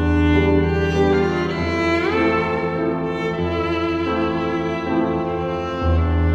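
Slow instrumental music on bowed strings, violin over cello, holding long sustained notes above a steady low bass note. The melody slides upward in pitch about two seconds in.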